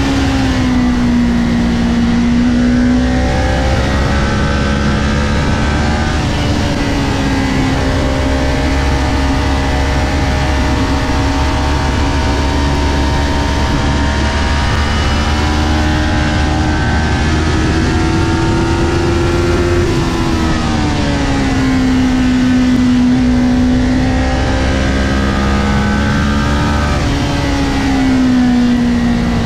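Kawasaki Ninja 400's parallel-twin engine running hard at racing revs, heard from onboard over a steady rush of wind. Its note sags and climbs again several times as the rider works the throttle and gears through the corners, peaking about two-thirds of the way through before dropping.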